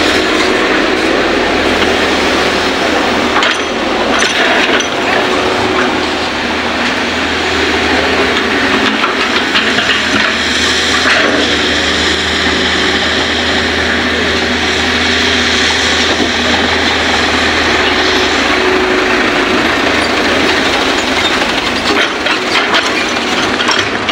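Hitachi hydraulic excavator at work, its diesel engine running steadily under load while it digs and swings, with loose soil pouring into a dump truck's bed.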